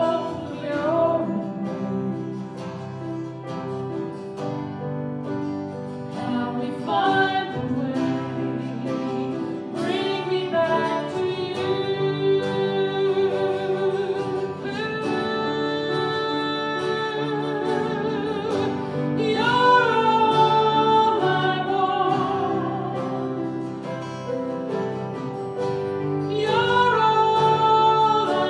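Worship song: a singer holding long, wavering notes over guitar accompaniment.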